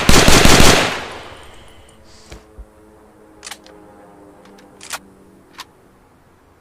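M1 carbine firing a rapid string of shots that stops under a second in, the report dying away over the following second. A few faint clicks follow.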